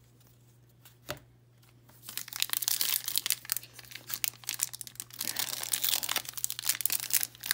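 Foil wrapper of a trading-card pack crinkling as it is handled, a rapid, dense crackle starting about two seconds in. A single light click comes about a second in.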